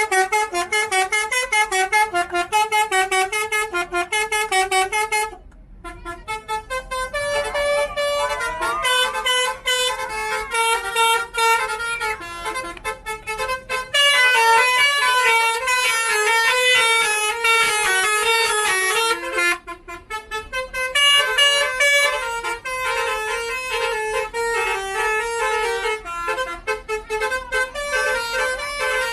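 Bus Basuri telolet horns playing quick, tune-like runs of stepped notes in rapid on-off pulses, with a short break about five and a half seconds in.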